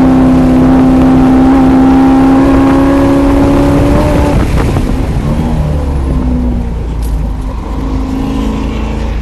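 C5 Corvette Z06's LS6 V8 at full throttle from inside the car, its note rising slightly with speed. About four seconds in the driver lifts off for hard braking, and the note drops and comes back only in short bursts.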